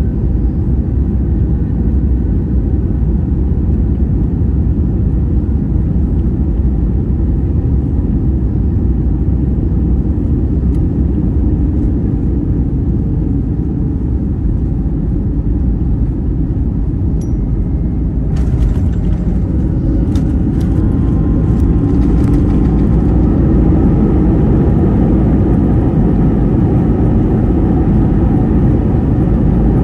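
Cabin noise of an Airbus A321-271NEO on final approach: the steady rumble of its Pratt & Whitney geared turbofan engines and the airflow over the wing. About two-thirds of the way through, a sudden clatter of clicks and rattles marks the main gear touching down, and the rumble then grows louder.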